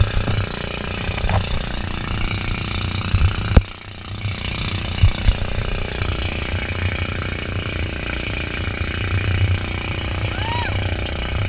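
Wind buffeting the microphone of a camera on an inflatable banana boat towed at speed over choppy sea, with water spray hissing and a low rumble. A few thumps come as the boat bounces on the waves, the sharpest about three and a half seconds in.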